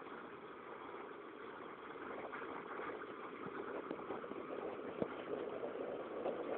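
Thunderstorm sound: a steady, noisy wash with faint small ticks, growing gradually louder, with one sharp tick about five seconds in.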